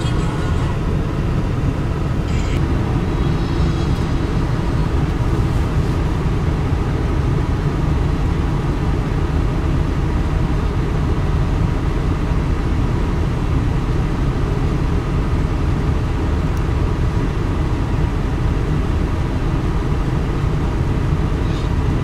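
Hitachi 350H excavator's diesel engine running steadily under working load as the machine digs and swings sand, the sound mostly low and unbroken.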